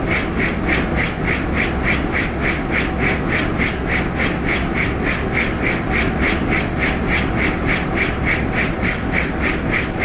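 Helicopter heard from inside the cabin: the rotor blades beat in an even, rapid pulse, about five a second, over a steady rushing noise.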